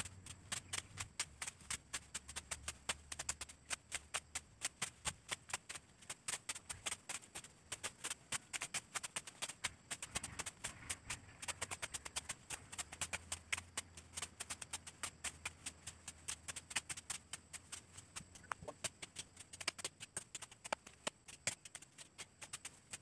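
Rapid, uneven clicking, several sharp clicks a second, over a faint steady high hiss.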